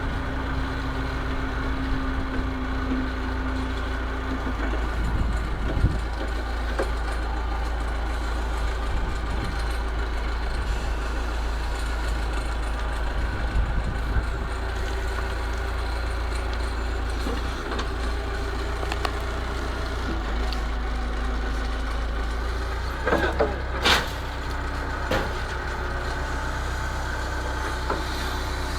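Massey Ferguson 50HX backhoe's diesel engine running steadily, with a few scattered knocks and a louder cluster of knocks near the end.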